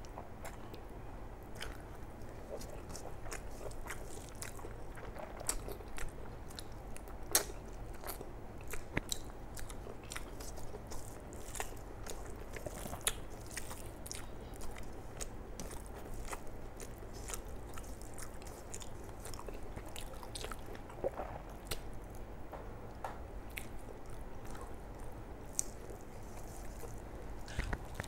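Close-up chewing and mouth sounds of a person eating rice and curry by hand, with irregular wet smacks and clicks, a few louder than the rest.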